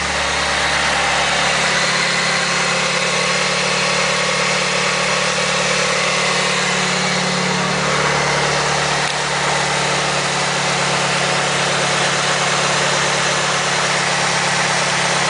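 A 1995 Mitsubishi Eclipse RS's non-turbo four-cylinder engine idling steadily just after a fresh oil change, running smoothly with no change in speed.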